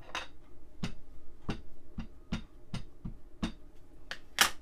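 Distress Oxide ink pad dabbed repeatedly onto a small gel printing plate to ink it: a run of soft taps, roughly two a second, with one sharper click near the end.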